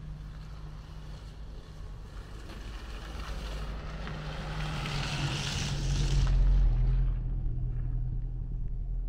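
A motor vehicle's engine drawing near and passing by. It is loudest about six seconds in, and its note drops as it goes past.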